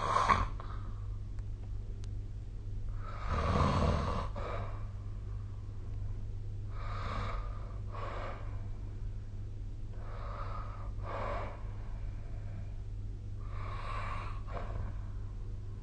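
A sleeping person snoring: four breaths about three and a half seconds apart, each in two parts, the first the loudest and deepest. A steady low hum runs underneath.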